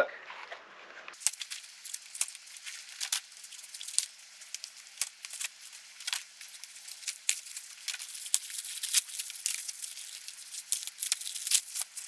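Foam and plastic packing wrap being pulled and cut off a new bicycle frame: crinkling with many sharp, irregular clicks and snaps.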